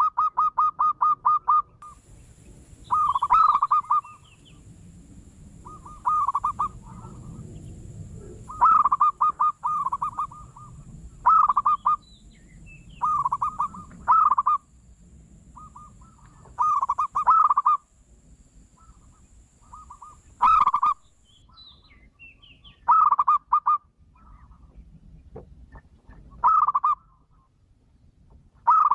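Zebra dove (local perkutut) cooing: about a dozen phrases of quick staccato coo notes, each phrase about a second long, with short gaps between them.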